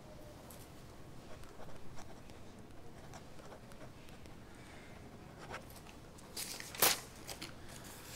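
Soft handling sounds of a small flip notepad and a pen writing in it, faint scratches and rustles of paper, with one brief, louder rasp of paper about seven seconds in.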